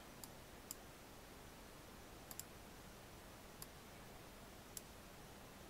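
Computer mouse clicks, about six short sharp ones, two of them close together near the middle, over a faint steady hiss.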